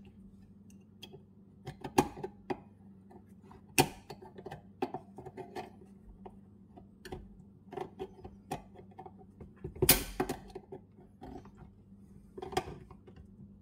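Metal clicks, clinks and light scrapes as the Murray riding mower's deck height lift lever and its shaft are worked by hand. A few louder knocks come about 2, 4 and 10 seconds in.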